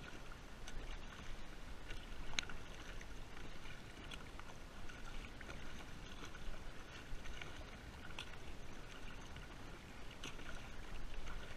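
Water lapping and trickling against a kayak hull, with a few small clicks and knocks.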